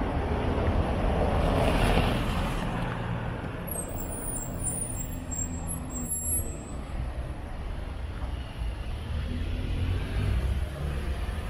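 Street traffic on wet roads: a steady low rumble of engines, with a swell of tyre hiss about two seconds in as a vehicle passes.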